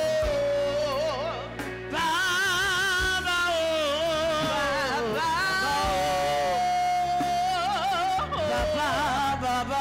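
A woman singing a worship song into a microphone, drawing out 'Papa-o' in wavering melismatic runs, with a long held note about six seconds in, over steady low accompaniment.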